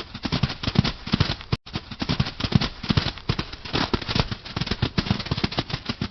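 Tiger growling: a rough, rapidly pulsing rumble with a brief break about a second and a half in.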